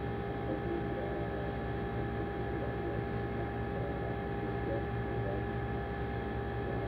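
Steady background hum with several held tones, with faint, indistinct voices wavering in and out beneath it.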